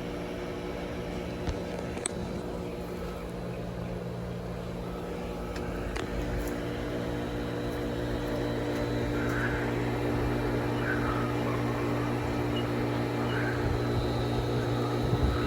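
Pool pump motor running with a steady hum, a little louder from about six seconds in, with a few light clicks. The pump is pushing too little water through the heater, which shows a check-flow fault because the filter needs backwashing.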